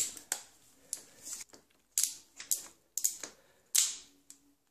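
Hand socket ratchet being worked on a motorcycle engine fastener: a string of short clicking rasps, a couple of strokes per second.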